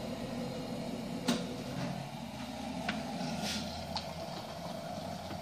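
A kettle heating with a steady rumbling hiss, with a few light clicks and taps from hands handling a fishing rod blank and its foam grip.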